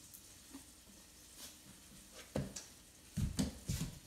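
Quiet room tone, then a single knock about two and a half seconds in and a quick cluster of dull thumps and rustles near the end, typical of the recording camera being handled and moved close to the floor.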